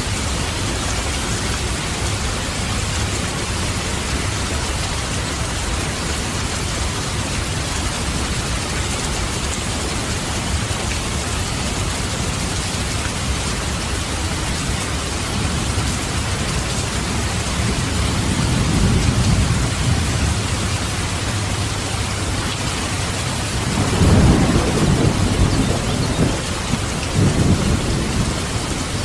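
Steady heavy rain with thunder. A low rumble of thunder swells about two-thirds of the way through, and a louder roll of thunder breaks in near the end, peaking twice.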